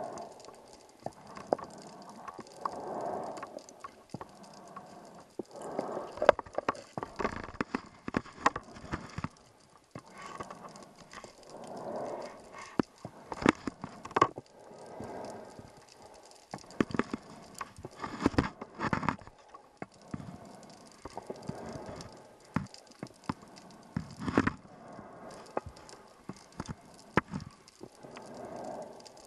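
Scuba diver breathing through a regulator underwater: a breath about every three seconds, with clusters of crackling, clicking exhaust bubbles.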